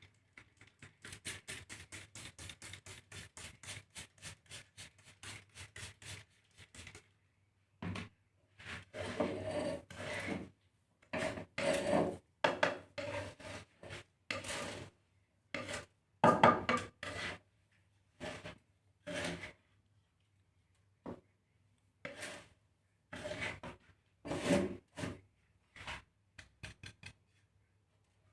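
Spatula stirring and scraping a millet-and-grain bird-feed mix in a dry pan as it roasts. The strokes are quick and even, about four to five a second, for the first few seconds, then turn slower and irregular, with short pauses.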